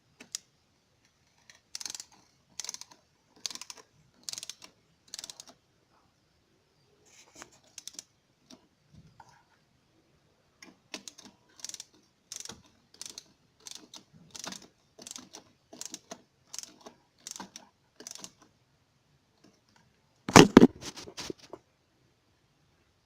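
Ratchet wrench worked in a steady run of strokes, a little more than one a second, with a pause in the middle, then a loud metallic clatter near the end.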